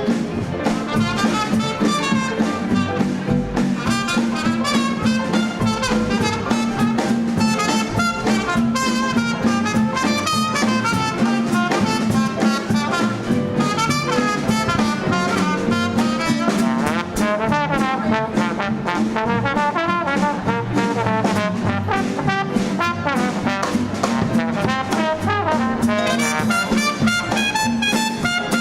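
Live swing dance band playing an instrumental chorus between the singer's verses.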